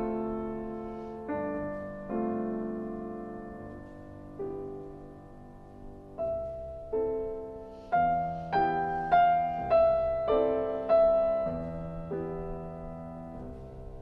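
Background solo piano music: slow, soft notes and chords that each ring out and fade, becoming busier about eight seconds in, with a new note roughly every half second for a few seconds.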